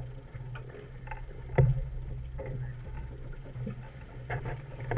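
Fishing boat's engine running with a steady low hum, with a few scattered knocks and clicks on deck, the sharpest about one and a half seconds in.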